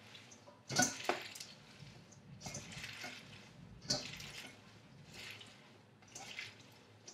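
Hands squeezing and kneading sauce-coated kale leaves in a metal colander: wet squelching in short, irregular bursts about a second apart.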